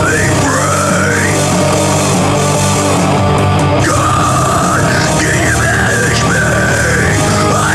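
Loud heavy rock music in an instrumental passage with no singing; a pitched line bends up and down over a dense, steady band.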